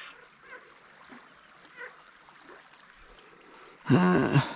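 Faint steady background with a few faint short chirps, then about four seconds in a short, loud voice-like sound lasting about half a second.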